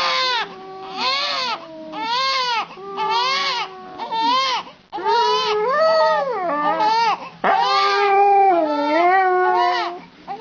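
Wailing cries, each rising and falling in pitch, about one a second, then longer drawn-out wavering wails from about five seconds in.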